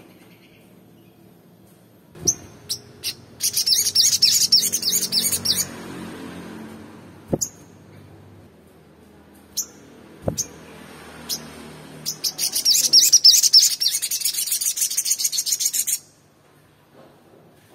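Male olive-backed sunbird singing: a few sharp single chirps, then a fast, high trill of about two seconds, more single chirps, and a longer trill of nearly four seconds that cuts off suddenly.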